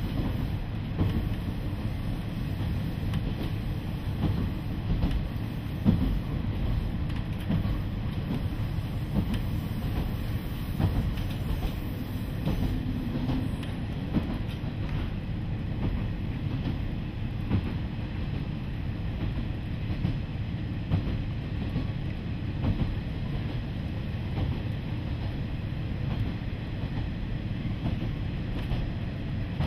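Inside a KiHa 40 diesel railcar under way: a steady low rumble of the diesel engine and wheels on the rails, with frequent uneven clacks and knocks from the track.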